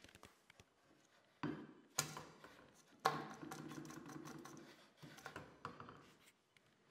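Steel masonry drill bits clattering and scraping against each other and the PVC pipe holders as they are lifted out and dropped back in: several sharp clacks, the loudest about three seconds in, with rattling between them.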